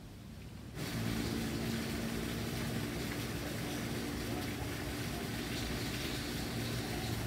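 Steady machine hum with a hiss over it, starting suddenly about a second in.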